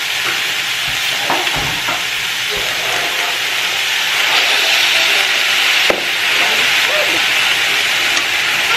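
Vegetables sizzling in a hot frying pan, the sizzle growing louder about four seconds in as stir-fry sauce is poured over them and stirred with a wooden spatula. A single sharp knock sounds near six seconds.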